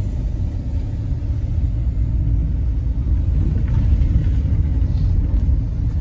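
Steady low rumble of a car driving on a road: engine, tyre and road noise inside the vehicle.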